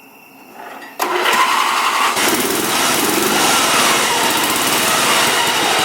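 A racing riding lawn mower's small engine cuts in suddenly about a second in and runs loud at high revs, its pitch wavering up and down as the mower drives off.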